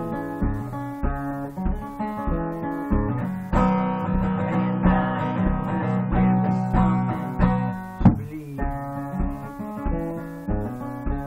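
Acoustic guitar played solo, an instrumental passage of strummed chords and notes, with a low thump about twice a second keeping time. The playing swells about a third of the way in, and there is one sharp accented hit a little past two thirds through.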